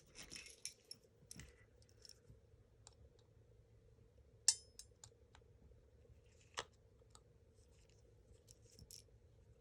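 Small parts of an airsoft gun's gearbox being handled: light taps, rustles and scattered clicks of plastic and metal pieces, with two sharper clicks about four and a half and six and a half seconds in.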